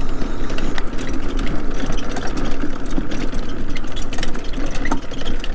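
Bicycle rolling along a gravel road: a steady rush of tyre and wind noise full of small clicks and rattles.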